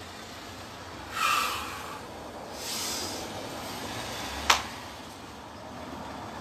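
Forceful breathing of a martial artist performing a form: a hard exhalation about a second in and another airy breath near three seconds. A single sharp crack with a low thud comes about four and a half seconds in, against a steady background hiss.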